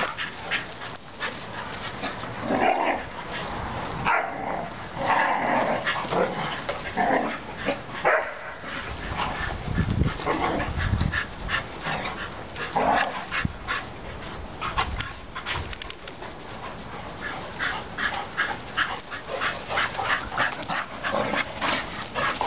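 Several dogs, a schnauzer, a black Labrador and a bull terrier, play-fighting, with short, irregular yips, whimpers and barks.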